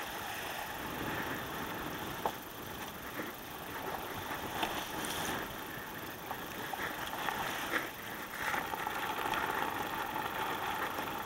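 Wind buffeting the microphone and water rushing and splashing along the hull of a sailing kayak under way in strong wind, with scattered slaps of spray against the boat.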